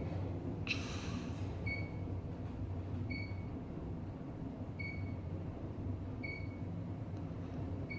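A short high electronic beep repeating about every one and a half seconds over a steady low hum, with a brief hiss about a second in.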